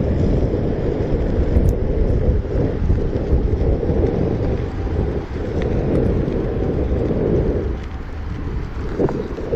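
Wind rumbling and buffeting on a moving microphone: a loud, continuous low rumble that swells and dips, with a few faint clicks.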